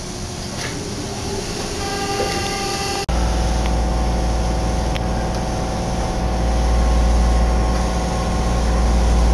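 Linear-motor subway train of the Osaka Metro Nagahori Tsurumi-ryokuchi Line pulling out of a station, heard from inside the car. About three seconds in, a deep rumble with a steady motor whine of several tones sets in suddenly and grows a little louder as the train gathers speed.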